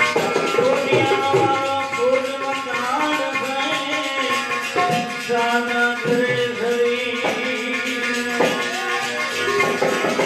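Devotional music: a melody that slides between held notes, over hand-drum percussion.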